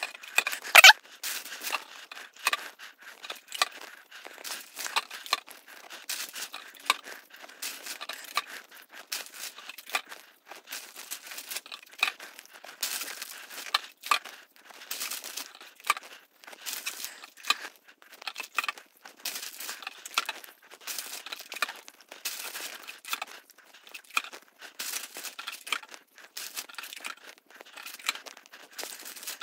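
Hands handling cotton balls and cleaning supplies in sped-up footage: a rapid, continuous string of short rustling, crinkling and tearing noises with small taps.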